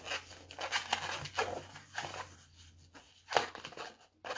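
Hands tying off an inflated green latex twisting balloon: irregular rubbing and rustling of the latex, with a sharp click about three and a half seconds in.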